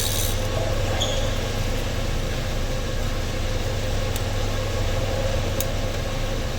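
Steady low mechanical hum that does not change, with two faint ticks in the second half.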